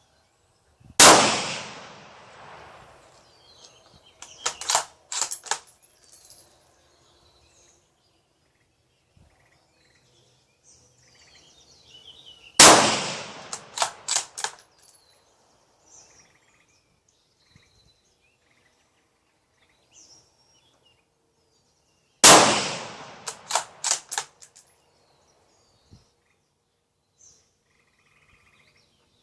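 .223 Remington 700 bolt-action rifle fired three times, about ten seconds apart, each shot ringing out briefly. After each shot comes a quick run of sharp metallic clicks as the bolt is worked to chamber the next round.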